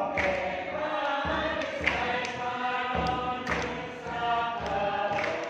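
A small group of voices singing a hymn together, with a low drum beat under the singing.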